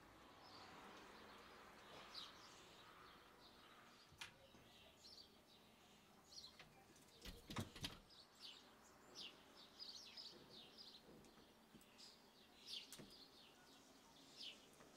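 Faint birdsong: many short, high chirps repeating throughout, busiest in the second half. A few sharp clicks and knocks from bicycle parts being handled, the loudest cluster about halfway through.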